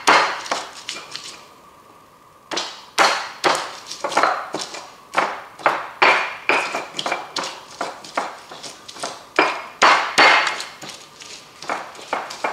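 Stone pestle pounding and grinding chillies and garlic in a stone mortar (an Indonesian cobek and ulekan) to make sambal: sharp stone-on-stone knocks about two to three a second, with a short pause about two seconds in.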